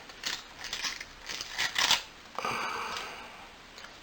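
Fine-grit sandpaper strip rubbing between a space heater's thermostat contacts, cleaning the contact faces: a few short scratchy strokes, then one longer rasping stroke about two and a half seconds in.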